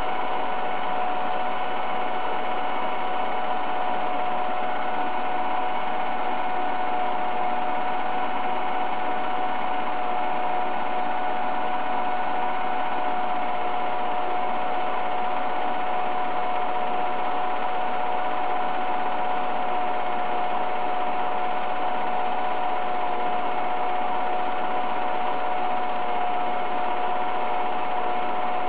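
An 8mm film projector running steadily: an even motor and fan hum with a constant high whine.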